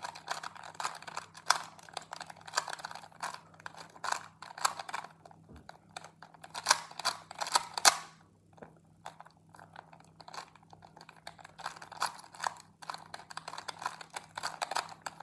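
A 2x2 Rubik's cube being turned rapidly during a speedsolve, its layers clicking and clacking in quick runs of turns. The clicking falls off for about three seconds past the middle, then picks up again.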